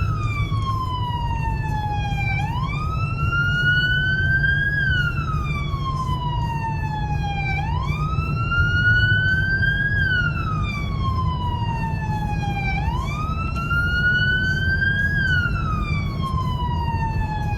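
Emergency siren sounding a slow wail, its pitch climbing and then sliding back down about once every five seconds, over a steady low road rumble.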